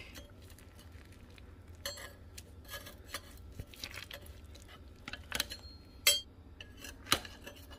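Slotted metal spatula clinking and scraping against a slow cooker's crock while being worked under a cooked whole chicken: a few scattered clinks, the two loudest about six and seven seconds in.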